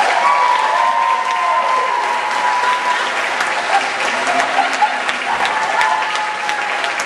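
Audience applauding, a dense steady clapping, with a few voices calling out over it.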